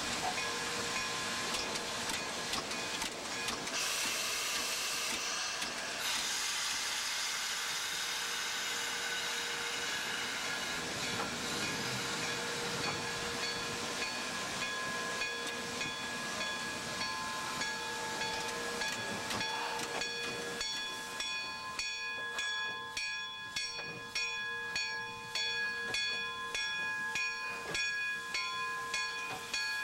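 Steam locomotive No. 29 hissing steam, a steady hiss with a few faint ringing tones. About two-thirds of the way through, a regular beat of repeated strokes sets in.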